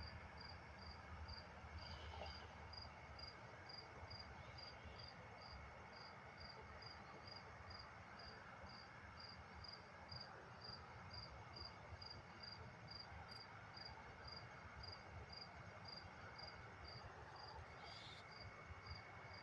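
Cricket chirping faintly and steadily, about two short high-pitched chirps a second, with a fainter continuous insect trill behind it that comes and goes.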